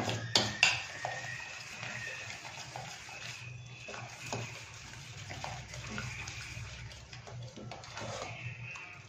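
A metal spoon stirring thick rava and wheat-flour batter in a metal vessel: wet scraping and squelching, with the spoon clinking against the vessel's sides, two sharper clinks just after the start. A low steady hum runs underneath.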